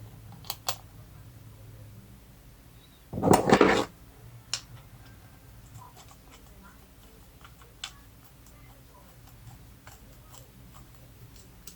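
Light clicks and taps of small metal parts and tools being handled during carburetor reassembly, with one louder, brief noisy clatter about three seconds in.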